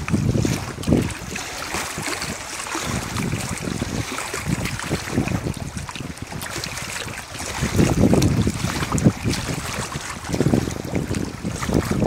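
Small wind-driven waves lapping and washing against rocks at the water's edge, with wind gusting on the microphone as a low rumble that swells about two thirds of the way in and again near the end.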